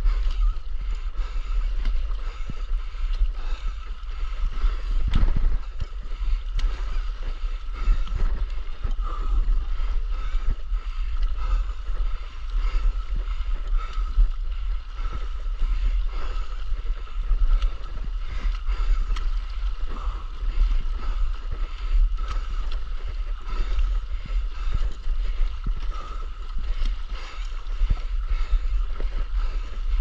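Stand-up paddleboard paddling through calm water: the paddle blade dipping and pulling about every two seconds, with water swishing past the board and a low rumble underneath.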